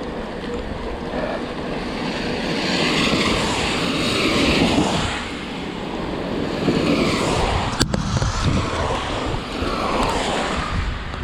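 Wind and heavy rain buffeting the microphone in a rainstorm: a loud rushing noise with a low rumble that swells and eases, and one sharp click about two-thirds of the way through.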